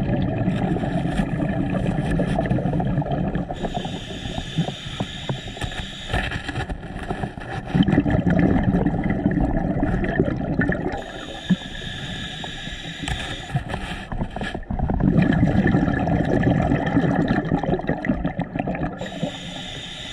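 A scuba diver breathing underwater through a regulator: a hiss on each inhale, then a longer rumble of exhaled bubbles, in a cycle that repeats about every seven to eight seconds.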